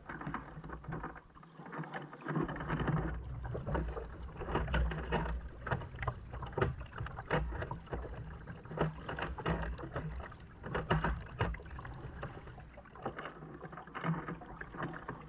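Kayak paddling at sea: the paddle blades dipping and splashing in irregular strokes, with water sloshing against the hull of a sit-on-top kayak over a low rumble.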